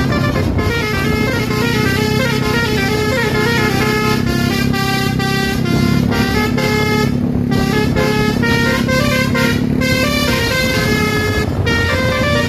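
Bus basuri 'telolet' musical air horns playing a fast tune of quick stepping notes, over a steady low drone.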